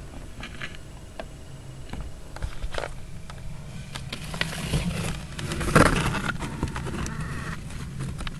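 Close handling noise of a hand-held camera pushed among leaves and stems: scattered clicks and rustling, with a louder rustle about six seconds in, over a low steady hum.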